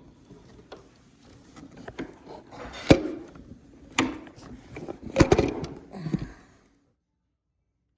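Several irregular knocks and clunks, as of objects being handled and set down, the sharpest about three seconds in and a quick cluster about five seconds in; the sound cuts off suddenly near the end.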